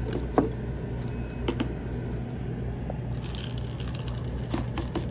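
Star-shaped baby cereal puffs being shaken out of a plastic canister onto a plastic lid: a few light clicks, then a brief rattle of puffs tumbling out a little past the middle. A steady low hum sits underneath.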